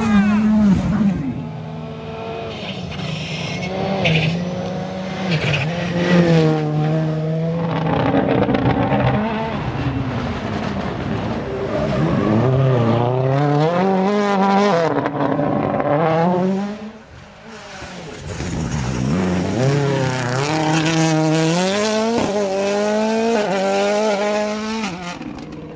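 World Rally Car engines at full throttle on a rally stage, revving hard, the pitch climbing and then dropping with each gear change. The sound dips briefly about two-thirds of the way through. Then another car accelerates hard through several quick upshifts.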